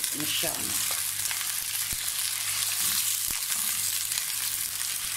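Chunks of raw beef sizzling steadily in hot oil in a non-stick karahi as they brown, turned with a silicone spatula, with a few light knocks against the pan.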